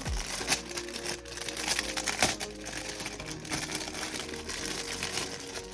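Plastic packaging crinkling and rustling as it is handled and unwrapped, a dense crackle with sharper crackles here and there, over background pop music.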